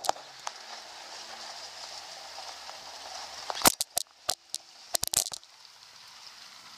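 A quick run of sharp knocks and clatters, about six in under two seconds starting about halfway through, over a steady faint hiss.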